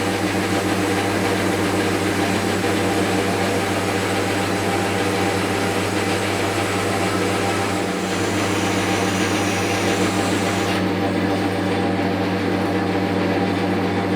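4x6 metal-cutting bandsaw running a test cut: a steady motor hum with the hiss of the blade cutting through the stock. The owner suspects the bow feeds too lightly for lack of spring balance and weight. About eleven seconds in the high cutting hiss drops away while the motor keeps running.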